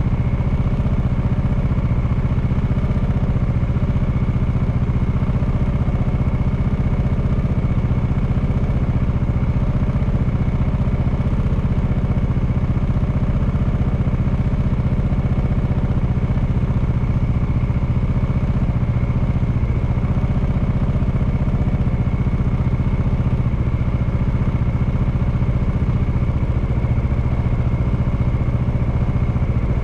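Honda Clubman motorcycle's single-cylinder engine running steadily, its pitch and loudness holding even.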